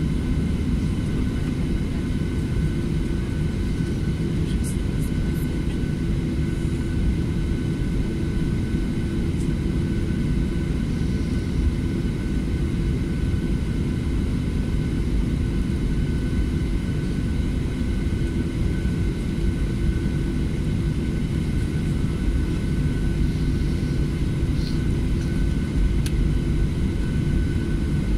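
Jet airliner's engines heard from inside the cabin over the wing while taxiing: a steady low rumble with a thin, constant high whine.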